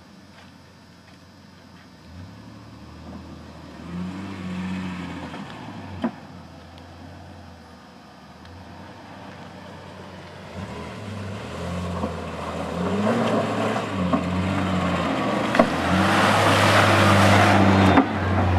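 Chevrolet S-10 Blazer's engine revving up and down in steps as it climbs a rutted mud track, getting louder as it comes up and passes close by. A few sharp knocks stand out along the way.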